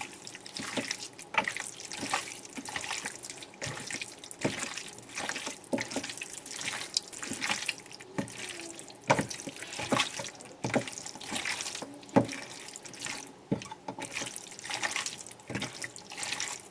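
Raw chicken wings being mixed by hand with dry seasoning in a bowl: irregular wet squishing and slapping of skin on skin.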